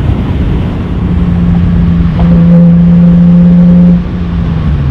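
BMW E46 M3's S54 inline-six running loud through a Top Speed aftermarket muffler, held at steady revs under load. About four seconds in, the driver lifts off: the level drops and the engine note falls.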